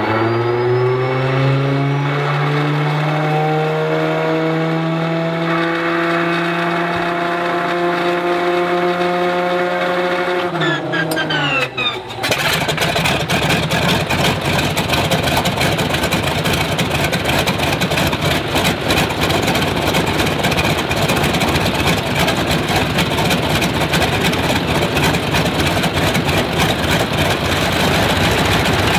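Stinson L-1's nine-cylinder Lycoming radial engine being started. The starter whines up to a steady pitch, the whine drops as the engine is turned over, and about twelve seconds in the engine catches and keeps running with an uneven firing beat. The crew is chasing a left-magneto ignition fault on this engine.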